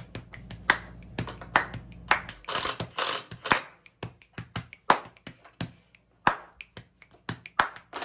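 Cordless Bosch impact driver run in a series of short bursts, tightening bolts, among sharp metal clicks and clinks from the wrench and tool.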